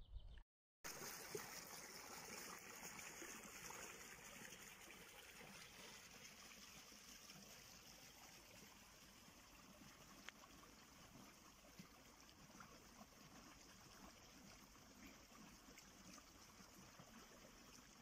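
Small stream trickling over stones, faint and steady.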